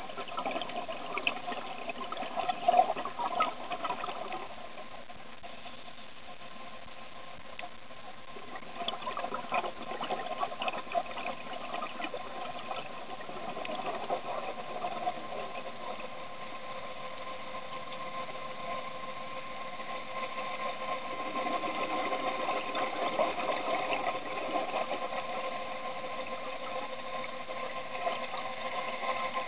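Underwater sound of scuba regulator exhaust bubbles gurgling and crackling in repeated swells every several seconds, over a steady mechanical hum.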